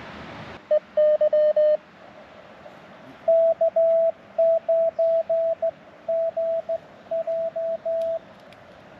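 Morse code (CW) from an amateur radio transceiver: a single mid-pitched beep keyed on and off in dots and dashes. A short group comes about a second in, then a longer run of characters from about three to eight seconds. A hiss of band noise fills the first half-second and cuts off abruptly.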